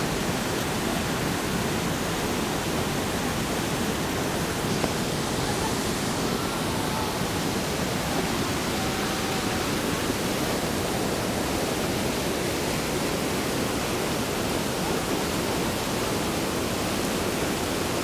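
River water cascading over a low weir and around boulders, a steady, unbroken rush of white water.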